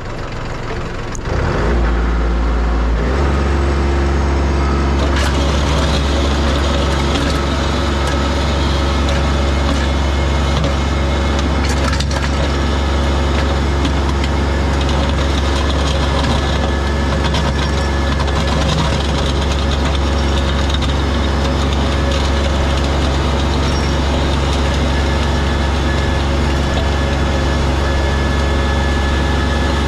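Kubota L3301 tractor's three-cylinder diesel engine running. It speeds up and gets louder about two seconds in, then holds a steady working speed.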